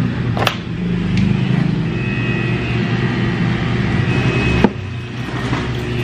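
Electric hair clippers buzzing steadily with a low hum. Two sharp clicks come through, one about half a second in and one near the end.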